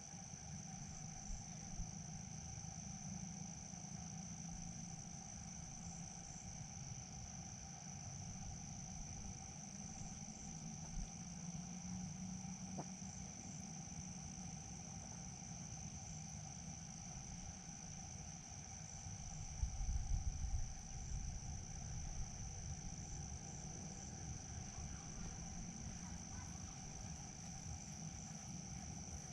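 Insects calling without a break in one high, steady, ringing tone, with a fainter, lower steady drone beneath. A low rumble runs under it and swells briefly about two-thirds of the way through.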